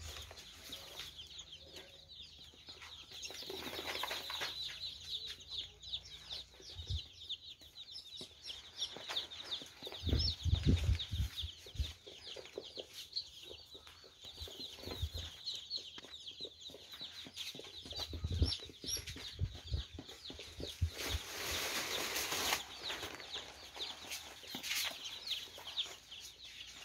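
A brood of day-old Noiler broiler chicks peeping continuously in short, high chirps, with a few dull knocks from handling scattered through.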